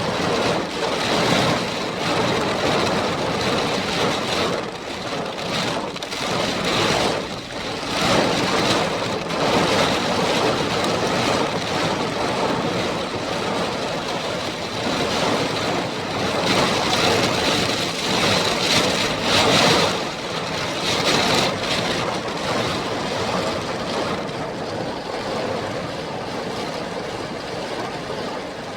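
Heavy rain pouring in a spring storm with wind: a steady rushing noise that swells and eases every few seconds.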